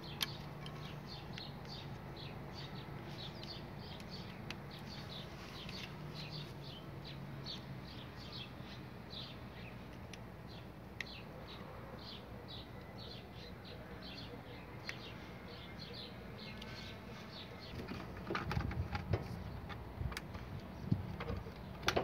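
Small birds chirping repeatedly, a few short chirps a second, over a faint low hum. From about 18 seconds in come louder irregular plastic clicks and knocks as the washing machine's control board is handled and pushed into its housing in the top frame.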